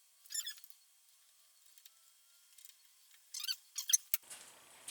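Short high squeaks of a cloth rubbing the front brake master cylinder reservoir and its lid, in two bouts, about half a second in and again past three seconds. A sharp click follows near the end.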